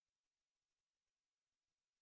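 Silence: no audible sound, only an extremely faint hiss.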